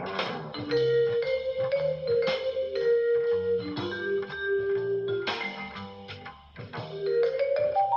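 Background music: an instrumental track with mallet-percussion and plucked-string tones and a steady beat.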